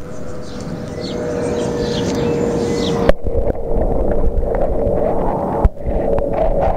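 Low rumbling water and handling noise from a Samsung W300 camera held underwater in a pond and swung through the water, with a thin steady hum under it and a sharp knock about three seconds in.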